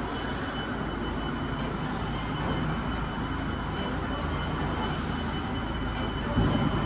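Steady factory-floor machinery noise: a low rumble with a thin, steady high whine running over it.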